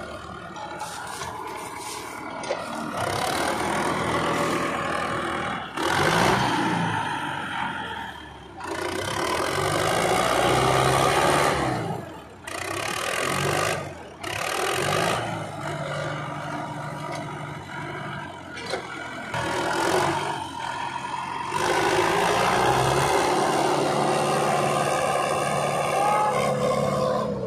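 Sonalika tractor's diesel engine running under load as it drives a rotavator through wet stubble soil. The engine note rises and falls, and the sound breaks off abruptly several times.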